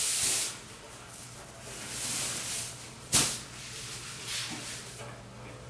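Sequined fabric swishing and rustling as it is lifted and folded in half, with a sharp slap about three seconds in.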